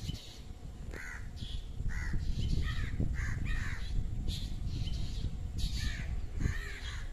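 Crows cawing, about ten harsh calls in quick succession, some following close on one another, over a steady low rumble.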